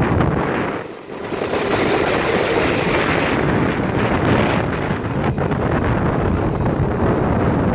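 Wind rushing over the microphone from a moving passenger train, with the train's running noise underneath. The roar eases briefly about a second in, then returns.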